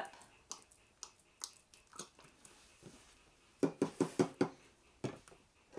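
Barbecue sauce being shaken and squeezed from its bottle into a glass measuring cup: light handling clicks, then a quick run of about six sharp knocks a little past the middle and one more shortly after.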